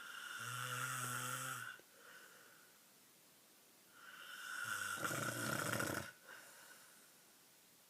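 Snoring: two long snores about four seconds apart, the first with a steady low droning pitch, the second rougher and louder.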